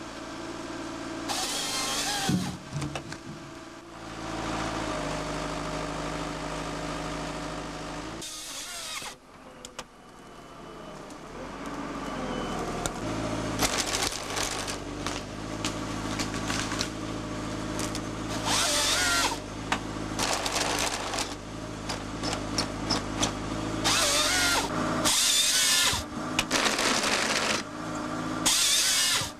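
WF Trac 1100 forestry tractor's engine running under hydraulic load while a crane-mounted harvester head saws through logs in about seven short, harsh bursts of roughly a second each. The engine drone dips about nine seconds in and then builds again.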